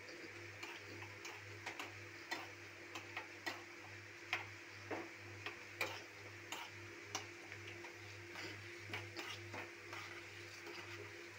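A steel spoon stirring dal and seeds in hot ghee in a small steel tadka pan, giving irregular sharp clicks and ticks a few times a second over a faint steady hum.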